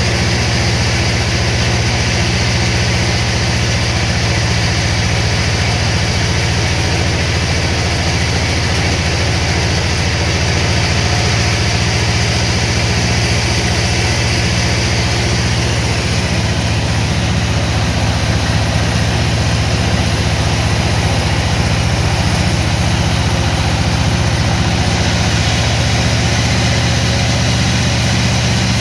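Sawmill machinery running steadily, a constant low engine or motor hum with a hiss above it, and no change in load.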